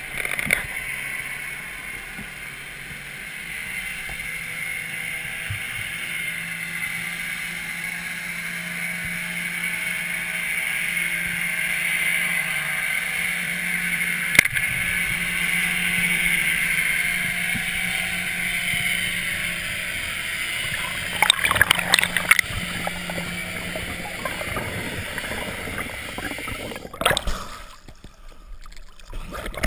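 Underwater ambience heard through a diving camera's housing: a steady hiss with a low steady hum under it, one sharp click about halfway through, and a few crackly bursts of bubbling later on. Near the end the sound changes abruptly as the camera breaks the surface.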